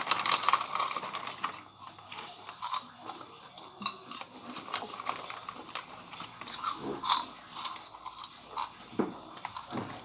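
Someone chewing a crunchy packaged snack, giving a run of irregular, crisp crunches.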